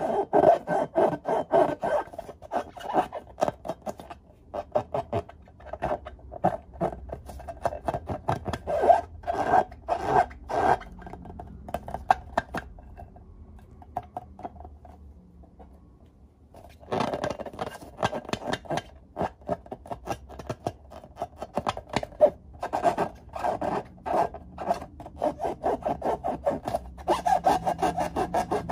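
Hands rubbing and squeezing filled latex balloons: a rapid run of short rubbing strokes on the rubber. It pauses for a few seconds midway, then starts again.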